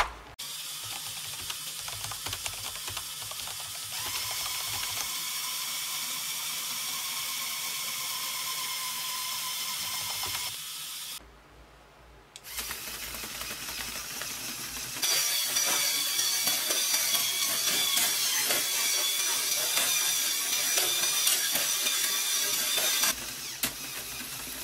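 Lego Technic vehicle's electric motors and plastic gear train running, a steady high whine with fast clicking from the gears. It stops briefly past the middle, then starts again and runs louder.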